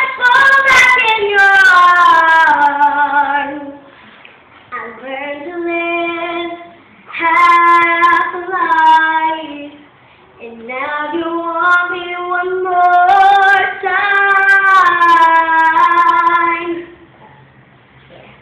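A young girl singing unaccompanied: four drawn-out phrases of long held notes with a wavering vibrato, separated by short breaths, stopping about a second before the end.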